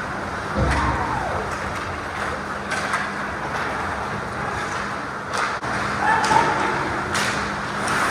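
Ice hockey game sounds: skates scraping on the ice and sticks and puck clacking, with several sharp knocks of puck or players against the boards over a steady rink hum.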